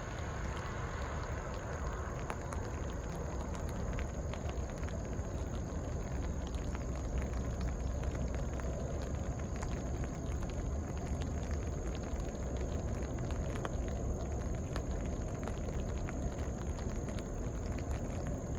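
Light drizzle falling, with many scattered drops ticking, over a steady low rumble and a thin steady high tone.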